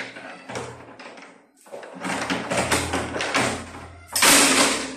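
Insulated electrical wire swishing and rustling in several irregular bursts as it is pulled and coiled by hand, the loudest swish about four seconds in.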